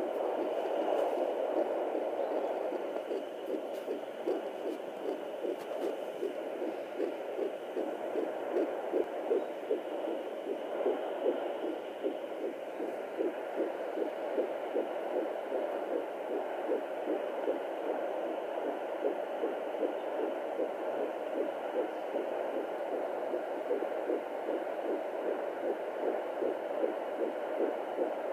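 Fetal heartbeat at 14 weeks of pregnancy, heard through a Doppler ultrasound monitor: a rapid, regular whooshing pulse of about two to three beats a second over a steady hiss.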